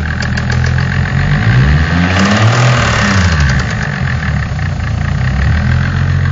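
Car engine idling with the bonnet open, revved once about a second and a half in: the pitch rises, then falls back to idle, with a hissing rush at the peak of the rev.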